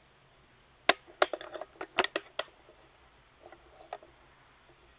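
A quick run of sharp clicks and taps of something hard being handled, about a second in, then a few fainter ones near the end.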